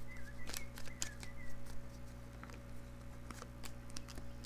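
Oracle cards being shuffled and handled, giving scattered light clicks and card snaps, over a steady low electrical hum.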